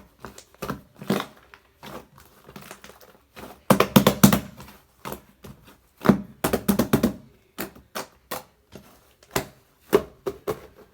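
Slime being squeezed and poked by hand, giving irregular sticky pops and clicks in short clusters, loudest about four seconds in and again around six to seven seconds.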